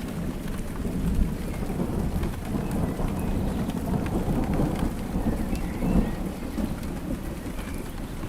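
Heavy rain pouring steadily, with a deep rumble underneath and scattered drop ticks.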